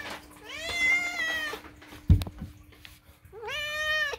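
Black-and-white domestic cat giving two long, loud meows, demanding food at mealtime. A single sharp thump falls between the meows.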